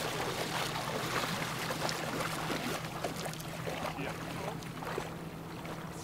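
Water sloshing and splashing in irregular bursts, thinning out about five seconds in, over a steady low hum.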